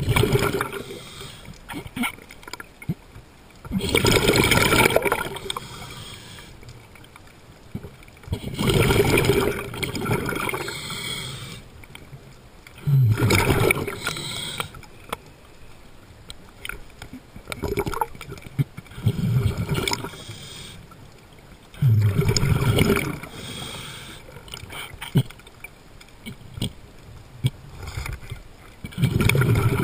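A diver's breathing underwater: a burst of bubbling exhaled air rushes past the mask about every four to five seconds, with quieter water noise between.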